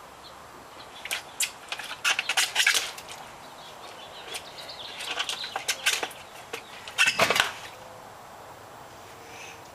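Irregular clusters of short knocks, scrapes and rustles as a toddler shuffles and bumps about inside a galvanized metal stock tank among plastic pots, with the loudest knock about seven seconds in.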